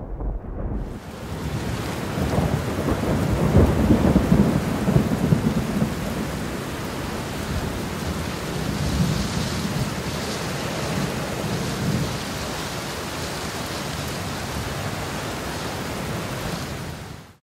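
Heavy rain pouring steadily in a thunderstorm, with thunder rumbling during the first few seconds. It cuts off abruptly near the end.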